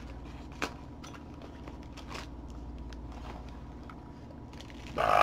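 Faint crinkling and a few light, sharp clicks of small toy blind boxes and their packaging being handled and opened. A voice breaks in right at the end.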